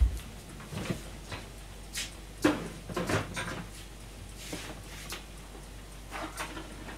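Kitchen handling noises: scattered knocks, taps and clicks, loudest at the start and about two and a half seconds in.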